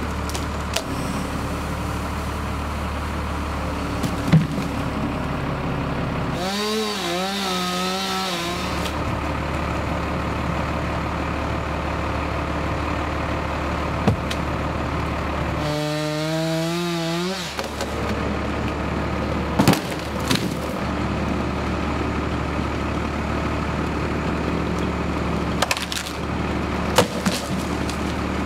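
Chainsaw cutting through tree limbs in two short bursts, its pitch wavering under load, over the steady drone of an engine running. A few sharp knocks of wood come in between.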